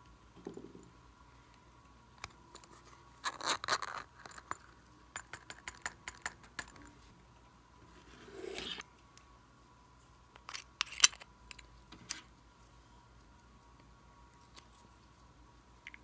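Small plastic and clay slime toppings being handled and dropped into a glass bowl of slime: scattered light clicks, snips and rustles in a few short clusters, the sharpest click a little before the last few seconds.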